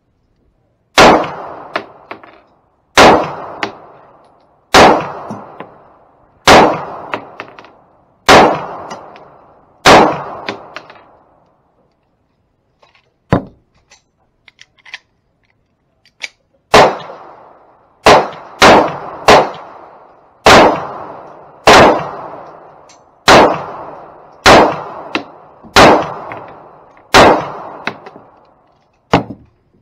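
Walther PPK/S .380 ACP pistol firing: six shots about two seconds apart, then a pause with a faint click, then another dozen shots at a quicker, uneven pace. Each shot has a short echoing tail under the range's roof.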